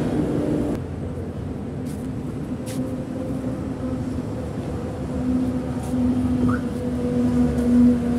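Highway traffic with heavy trucks passing: a steady engine and tyre drone that grows louder over the last few seconds as a truck goes by.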